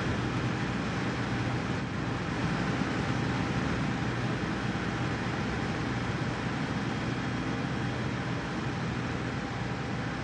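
Steady rushing background noise with a faint low hum that does not change.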